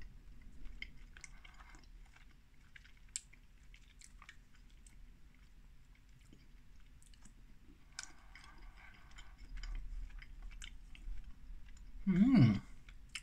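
A person chewing a small chocolate custard-flan sweet with the mouth closed, with faint wet mouth clicks. A short hummed voice sound comes near the end.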